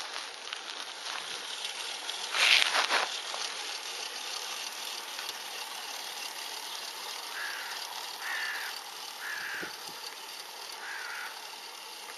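A bird calls four times with short, slightly falling calls in the second half, over a steady outdoor hiss. A loud rushing burst comes about two and a half seconds in.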